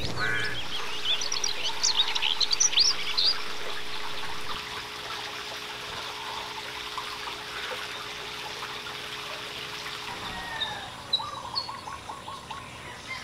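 Outdoor ambience with birds chirping, busiest in the first few seconds and sparser near the end, over a steady low hum.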